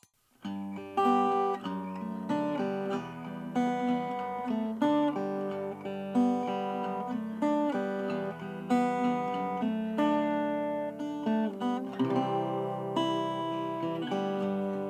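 Acoustic guitar being played: plucked single notes and chords that ring and fade, one after another, starting about half a second in.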